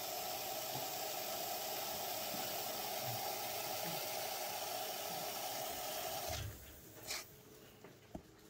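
Aerosol can of expanding spray foam hissing steadily as foam is injected into a lawn mower tire. The hiss cuts off abruptly about six seconds in, followed by a soft thump and a small click.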